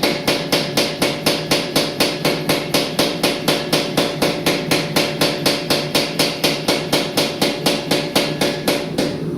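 Steady, even hammering on steel, about four ringing blows a second, stopping near the end.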